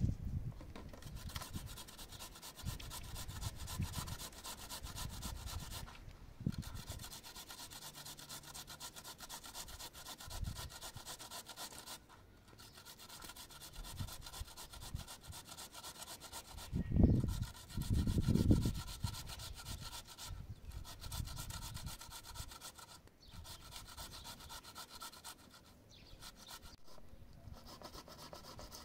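Knife scraping and rubbing against raw potatoes as they are peeled by hand, in continuous scratchy strokes. Two dull bumps from handling come a little past the middle.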